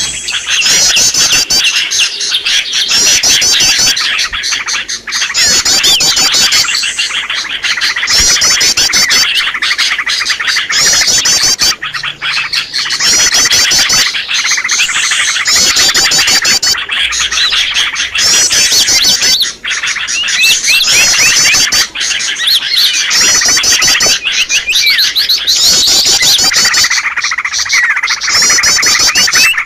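Small songbirds chirping and twittering fast and high, layered into a dense chorus that comes in repeated bursts of a second or two with short breaks: a looped bird-lure recording meant to call in small wild birds.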